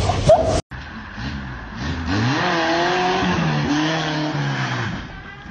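Car engine revving hard, its pitch rising and falling, as the car slides around a bend on a wet road, with tyre noise on the wet asphalt. It fades out near the end.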